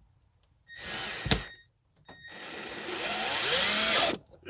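Cordless drill driving a drywall screw up into wood: a short run about a second in ending with a sharp click, then a longer run of about two seconds that grows louder, its motor pitch shifting under load, until it stops near the end.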